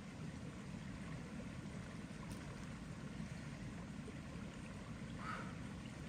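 River water flowing, a steady low rushing, with a short faint higher sound about five seconds in.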